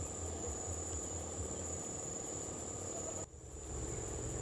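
Insects calling with one steady high-pitched drone, which cuts out for a moment about three seconds in, over a low rumble.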